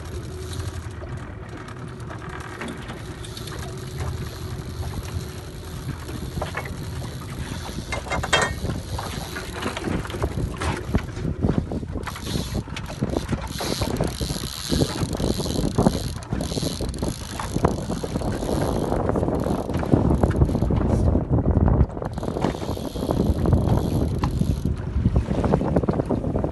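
Fly reel ratcheting and clicking while a fish is being fought on the line, mixed with wind buffeting the microphone.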